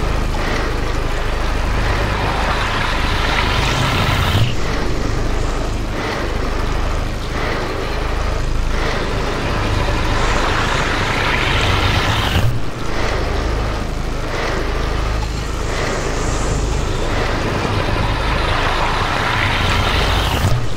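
Engine sound effect for a mechanical flying machine: a steady low rumble under a whirring mechanical drone that swells and fades, breaking off and starting again about four seconds in and again past the midpoint.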